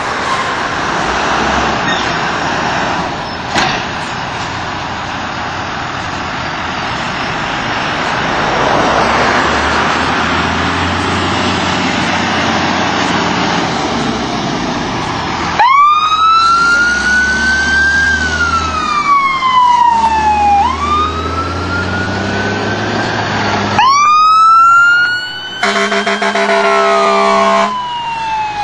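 Emergency vehicle siren on a fire-rescue ambulance and fire engine. For the first half only diesel engine and road noise is heard. Then an electronic siren starts up and wails, slowly rising and falling. Near the end the wail starts up again, briefly changes to a rapid yelp with a low horn blast, and goes back to the wail.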